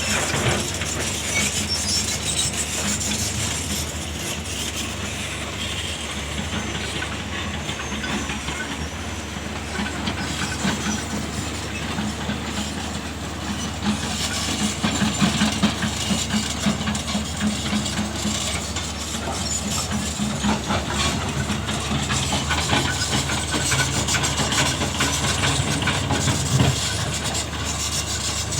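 Diesel engines of hydraulic excavators running under load as they work a levee, with a steady rushing hiss under them and scattered clanks. The engine note swells about halfway through.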